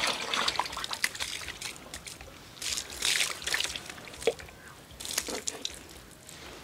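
Water poured from a plastic mug and splashed by hand over a man's arms and face while he washes, splashing and trickling onto the ground in several bursts.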